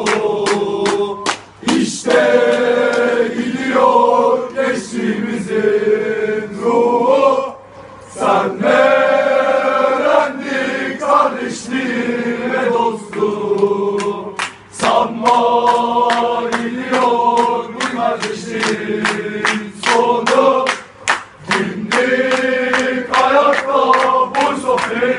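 A large group of men singing a chant together in unison, over sharp regular beats about three a second.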